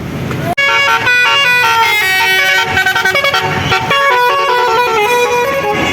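Bus telolet basuri musical air horn playing a quick melody, its notes stepping up and down in pitch. It starts abruptly about half a second in, after a brief low rumble.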